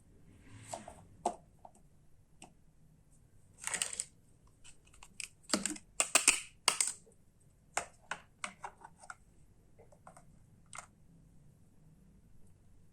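Irregular sharp clicks, clacks and short rustles of hard plastic toy parts being handled, with a cluster of louder clacks in the middle.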